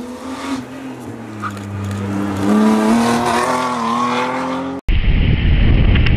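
Rally car engine revving hard as it approaches, its pitch rising in steps and growing louder. About five seconds in it cuts off abruptly to heavy wind buffeting on the microphone.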